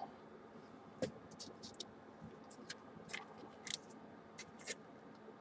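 Faint, scattered small clicks and light taps, with a slightly stronger knock about a second in and a cluster of clicks near the end: small handling noises close to the microphone.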